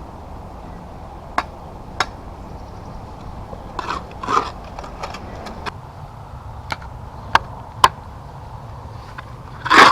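Narrow shovel digging into wet soil and gravel: scattered sharp clicks of the blade striking stones and a few short scrapes, with the loudest, longest scrape near the end.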